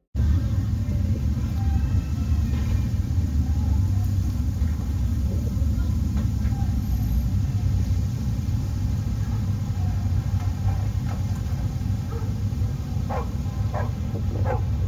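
Loud, steady low rumble heard in the open, the "very loud noise" the uploader attributes to an unknown object in the sky. Near the end, dogs bark three times.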